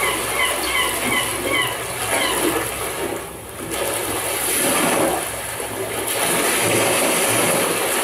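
Ocean waves washing in, a rush of surf that falls away about three seconds in and swells again. Seagulls call repeatedly over it during the first two or three seconds.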